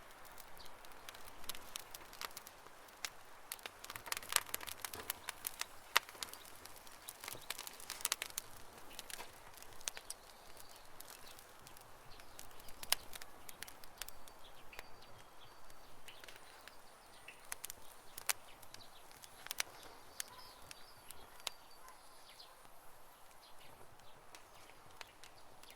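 Wood campfire crackling, with frequent irregular sharp pops that are densest in the first half. Faint bird chirps sound in the background in the second half.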